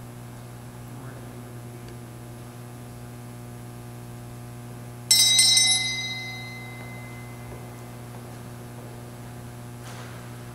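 A small bell rung once about five seconds in, its bright, high ringing fading away over about a second and a half, signalling the start of Mass. A steady electrical hum runs underneath.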